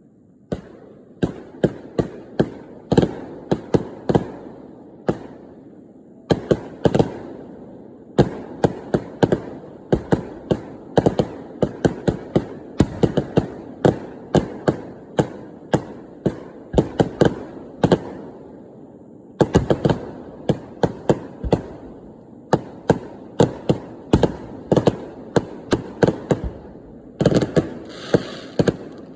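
Fireworks display: shells bursting one after another in rapid, irregular volleys of sharp bangs, each dying away quickly, with two short lulls.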